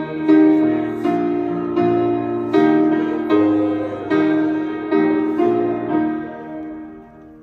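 Piano playing slow chords, each struck and left to ring. The playing dies away near the end as the song closes.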